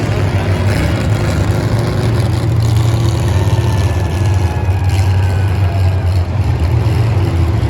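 Engine running steadily: a loud, low, even drone with no revving.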